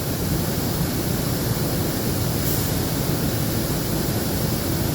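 Steady, even rushing noise of a background fan or air handling, with a brief faint high hiss about two and a half seconds in.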